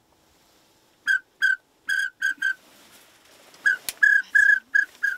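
A duck whistle blown in short toots at one steady pitch, about ten of them in two bursts, imitating the whistle of drake pintails to draw the birds in.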